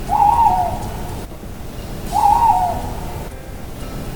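Owl hooting: two short hoots about two seconds apart, each rising and then falling slightly in pitch, over a steady background hiss.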